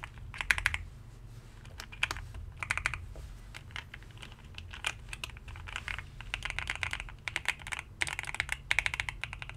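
Typing test on a GMK67 mechanical keyboard: bursts of rapid keystrokes with short pauses between them. It is a sound test of the board with some switches freshly hand-lubed, comparing them with the unlubed ones.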